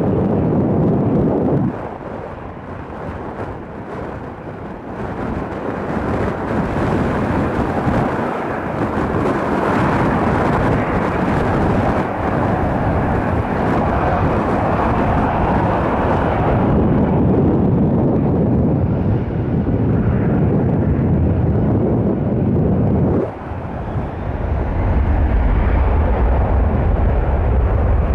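Jet airliner engine noise, a broad roar that swells and fades as aircraft pass, with wind on the microphone. The sound changes abruptly about 2 seconds and 23 seconds in, and ends as a heavy low rumble.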